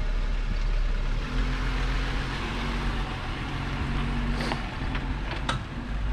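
Jeep Wrangler JL's 3.6-litre V6 at low revs, pulling away in second gear in low range with the clutch let out and no throttle. A steady engine tone settles in about a second in over a haze of rolling noise, with two small clicks near the end.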